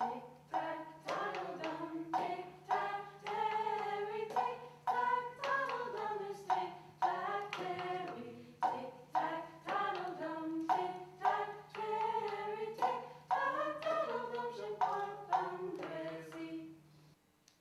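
Singing with sharp hand claps about twice a second, in a live performance; both stop abruptly near the end.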